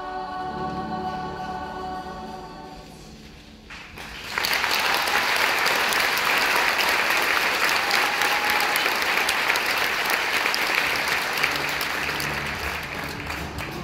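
A youth show choir's held final chord, fading out over the first few seconds. About four seconds in the audience bursts into loud applause, which keeps going.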